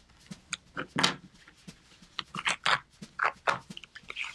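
Craft knife slicing through a leather wallet's stitched seam, then the glued leather layers being pulled apart: a run of short, irregular scratchy rasps, the loudest about a second in.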